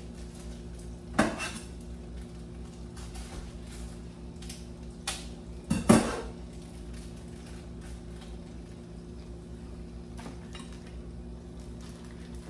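Metal cutlery and cookware clattering at a kitchen sink: a few sharp clinks and knocks, the loudest about six seconds in, over a steady low hum.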